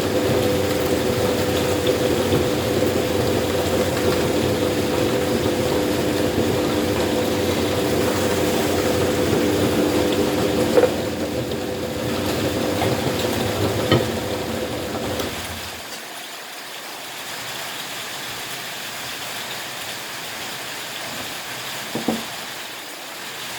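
Electric meat grinder motor running with a steady hum and a few clicks, then switching off about two-thirds of the way through, leaving a quieter steady hiss.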